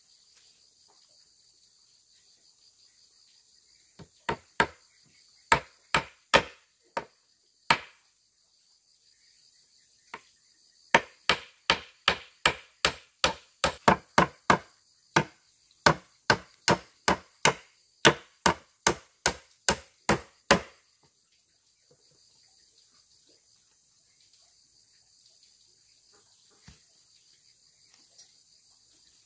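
A hand tool chopping into wood. A few spaced blows come about four seconds in, then a fast, even run of about two to three blows a second that goes on for some ten seconds and stops suddenly. Insects buzz steadily in the background throughout.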